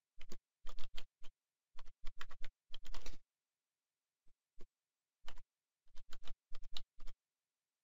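Computer keyboard typing: rapid clusters of keystrokes, a lull of about two seconds with only a couple of single taps, then another quick run of keystrokes.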